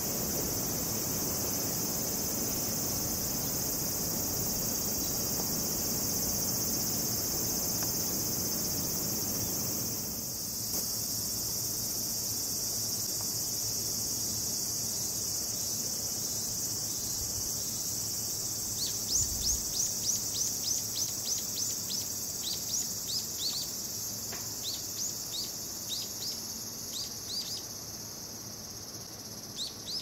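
Steady, high-pitched chirring of crickets and other summer insects, with a low rumble beneath it for the first third. From about two-thirds of the way in, a run of quick rising chirps starts several times a second, then slows and thins out.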